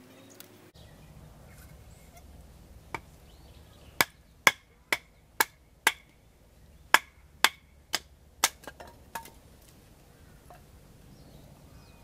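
Firewood being split into kindling by batoning a knife: a series of about a dozen sharp wooden knocks, roughly two a second, that stops a few seconds before the end.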